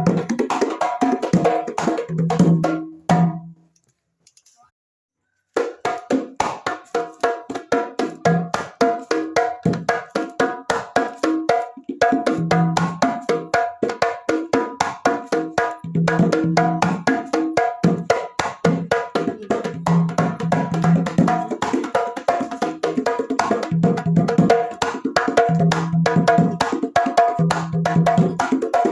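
Sundanese kendang hand drums played in fast, dense strokes for a sound test of a newly made or serviced set. Short, sharp slaps mix with held low tones from the large drum. The playing breaks off about three and a half seconds in and starts again two seconds later.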